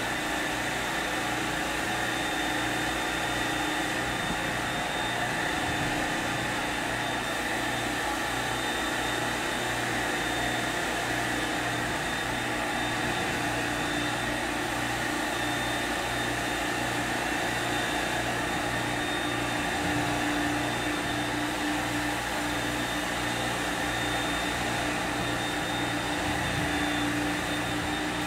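Carpet-cleaning extractor's vacuum and pump running steadily as its wand is drawn across an area rug, a continuous suction rush with a low pulse repeating about twice a second.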